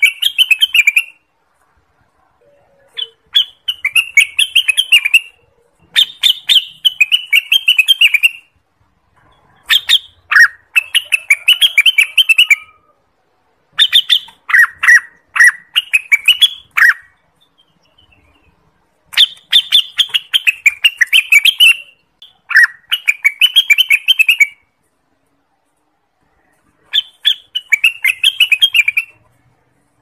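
Orange-spotted bulbul singing: short phrases of quick, warbling chattering notes, each two to three seconds long, repeated after pauses of a second or two.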